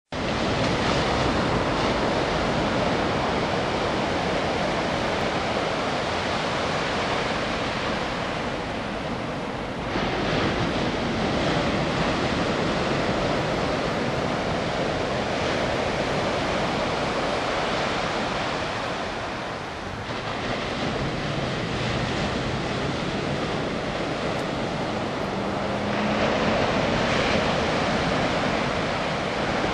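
Small ocean waves breaking and washing up a beach: a steady surf wash that swells about ten seconds in and again near the end.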